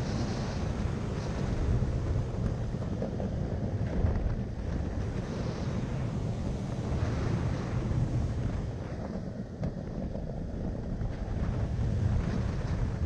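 Wooden roller coaster train running along its track with a steady low rumble, and wind rushing over the microphone.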